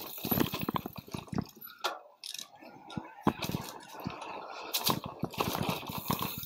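Mountain bike being ridden over rough ground: irregular rattles, clicks and knocks from the bike over the bumps, over a steady rush of tyre and wind noise.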